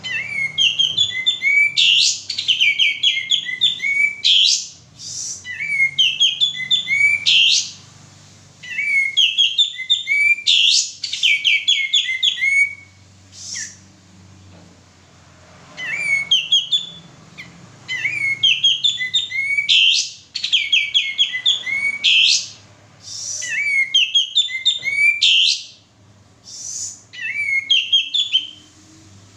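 Male kapas tembak, an Indonesian bulbul, singing vigorously: repeated bouts of quick, rising and falling whistled and chattering notes, each lasting two to four seconds with short pauses between.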